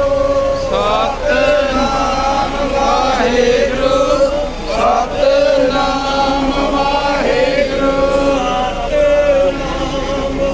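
Men's voices chanting a Sikh hymn, holding long notes that bend and glide in pitch, with no breaks.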